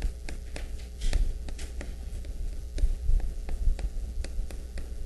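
Steady low mains hum from the lecture-hall sound system, with a scatter of light irregular taps and clicks, a few each second.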